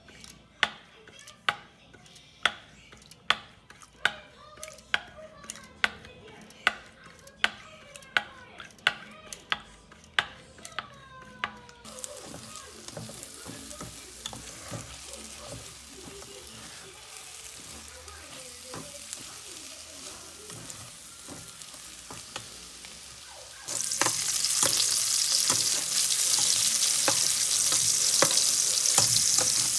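Knife chopping on a cutting board, steady single chops a little more than once a second, stopping about halfway. Then a quieter stretch with soft knocks of stirring. Near the end a loud sizzle of food going into a hot pan starts suddenly and keeps going.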